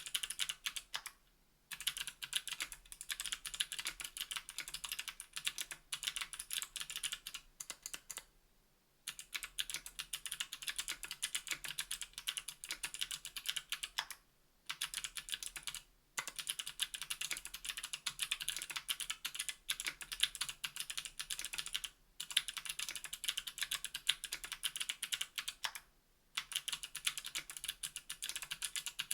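Typing on a KBDfans Tofu 60% aluminium keyboard with an aluminium plate, NK_ Sherbet click-bar switches and GMK Jamon keycaps: a dense run of sharp, crisp key clicks, broken by brief pauses several times.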